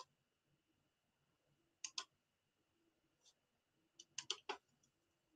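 A few sharp computer mouse clicks over near-silent room tone: a pair about two seconds in, a single click a second later, and a quick run of three near the end.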